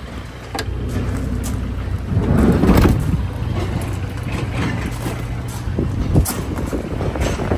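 Vehicle engine idling, a steady low hum, with a louder rush of noise about two and a half seconds in and a few sharp clicks.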